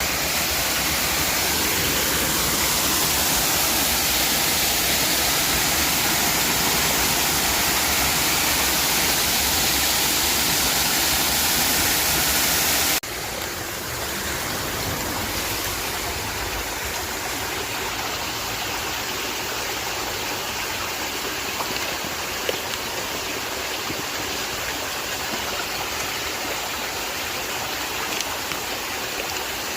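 Waterfall water rushing in a steady, even noise; about 13 seconds in the sound drops abruptly to a quieter level and carries on.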